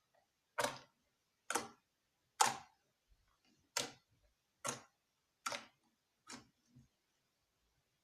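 Homemade clear-glue slime being squeezed and folded by hand, giving sharp pops about once a second, eight in all, the last two fainter.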